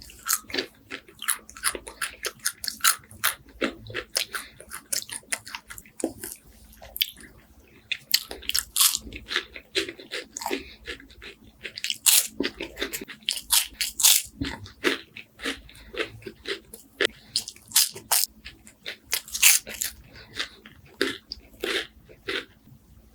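Close-up eating sounds: bites into crispy wafers with honey and walnuts, then chewing with dense, irregular crunching, several crackles a second.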